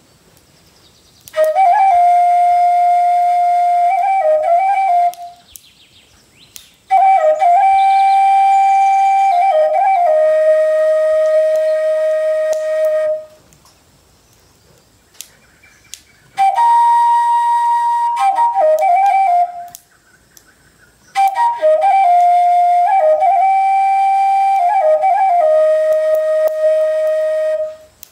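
A flute playing a slow melody in four long phrases: each holds a steady note, decorated with quick turns and trills, and the second and last phrases drop to a lower held note at the end. Short pauses separate the phrases.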